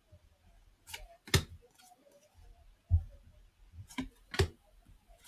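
Cardboard trading cards being flipped through by hand, with about five short, sharp card snaps spread across the few seconds.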